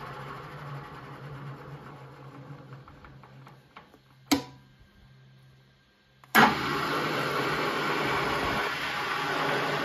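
EFI FC1201 geared-head drill press running down after being switched off, its sound fading over about four seconds. A single sharp click follows, then near quiet. About six and a half seconds in, the machine starts again suddenly and runs steadily and loudly.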